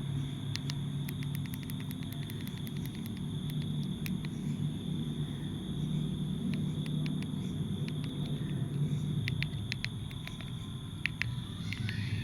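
Quick runs of light, sharp clicks, several a second with pauses between the runs, over a steady low hum and a faint steady high whine. No ringtone is playing.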